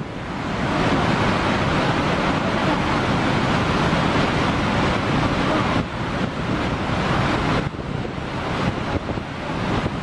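Water pouring through a dam's open spillway gates and crashing into the pool below: a loud, steady rushing roar, with wind on the microphone. The roar drops and changes abruptly twice in the second half.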